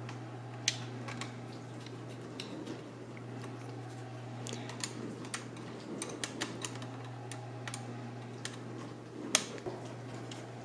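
Small irregular clicks and taps from a screwdriver and plastic parts being handled as an opened Toshiba Satellite laptop is put back together, with a sharper click shortly after the start and another near the end. A steady low hum runs underneath.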